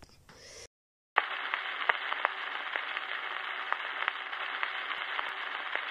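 Faint room tone that cuts to dead silence about a second in, followed by a steady hiss with scattered clicks, like radio static or record crackle.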